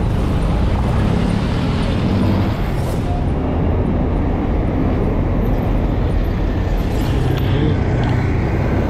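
Steady motor-vehicle noise: a continuous low engine rumble with road noise, holding at an even level throughout.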